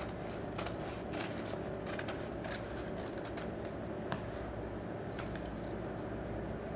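Scissors cutting paper: a string of short, irregular snips, fewer near the end, over a steady low hum.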